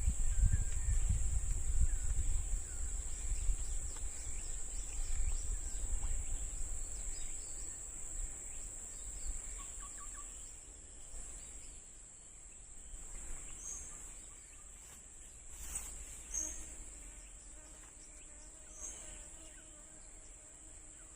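Insects droning steadily at a high pitch, with a low rumble that fades out over the first several seconds and a few faint short chirps.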